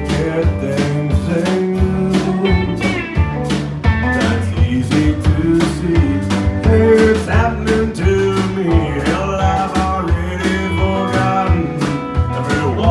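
A live country band plays: acoustic and electric guitars and a fiddle over a steady beat, with a man singing.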